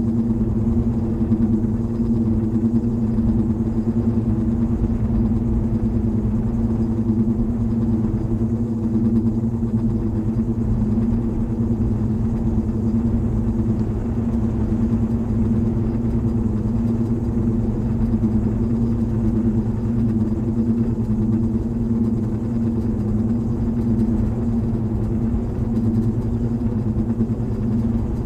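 A steady low rumble with a droning hum held on two low pitches, unchanging throughout, like heavy machinery or traffic noise.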